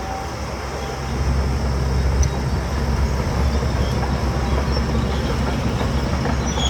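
Heavy diesel engine of earthmoving machinery running under load, a steady low rumble that grows louder about a second in.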